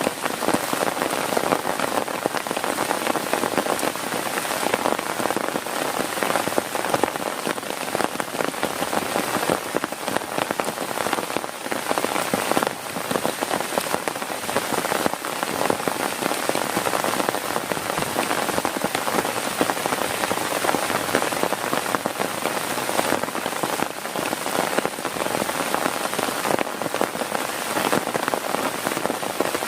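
Heavy rain falling on a tent: a dense, steady patter of drops.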